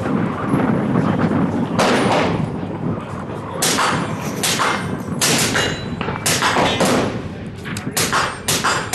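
Gunfire on a shooting range: about ten sharp shots in irregular succession, some only a fraction of a second apart. They come too fast for one bolt-action rifle, so several guns are firing.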